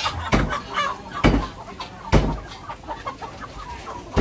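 Live domestic chickens clucking, with several heavy thumps about a second apart.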